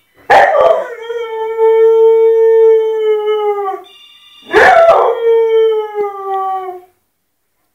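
Dog howling at a ringing telephone: two long howls, each starting with a sharp yelp, holding a steady pitch and sagging at the end. The phone's ring sounds briefly between them, about four seconds in.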